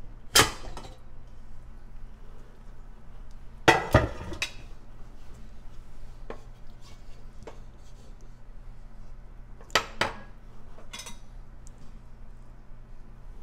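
Stainless-steel pressure cooker being opened and its contents stirred: sharp metallic clanks of the lid and utensils against the pot, one early, a close pair about four seconds in and another pair about ten seconds in, with quieter scraping and knocks between.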